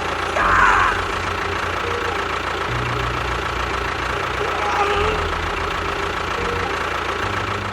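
Engine idling with a low, knocking chug, with a brief squeak about half a second in.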